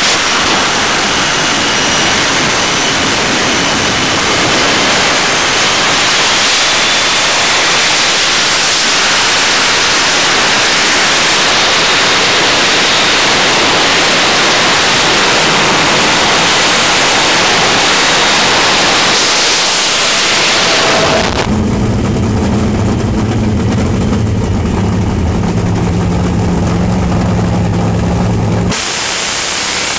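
Jet-powered dragster's turbojet running with its afterburner lit: a loud, steady roar. About two-thirds through it gives way suddenly to a lower, steady engine note with a deep hum, heard from an on-board camera on a dragster at the start line.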